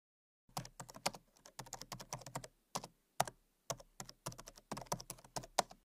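Keyboard typing sound effect: a quiet run of irregular key clicks, starting about half a second in and stopping just before the end.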